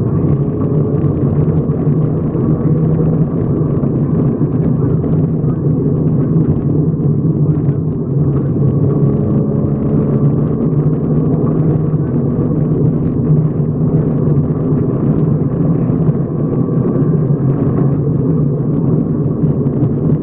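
Subaru rally car engine running hard at speed on a gravel stage, heard from inside the cabin, steady throughout with a constant crackle of gravel under the tyres.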